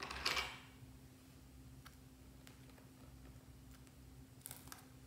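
Faint handling sounds of plastic lipstick tubes and a small cutter over slime: a short rustle just after the start, a few isolated light clicks, then a quick cluster of clicks near the end.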